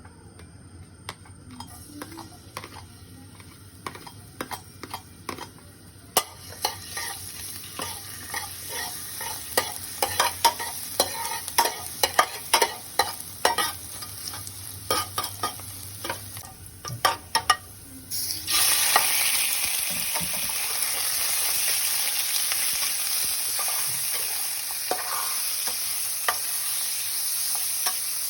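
Pork and morning glory stir-frying in a pan: a spatula clacks and scrapes against the pan over a growing sizzle. About eighteen seconds in, the sizzle jumps suddenly louder and stays loud and steady.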